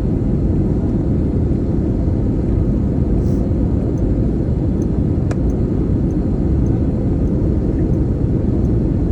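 Steady low rumble of an IndiGo airliner's engines and rushing air in flight, on its descent toward landing.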